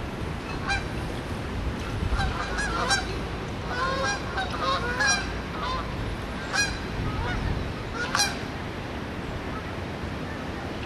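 Geese honking, a flurry of overlapping calls a couple of seconds in, then single calls spaced a second or two apart, over a steady rushing noise.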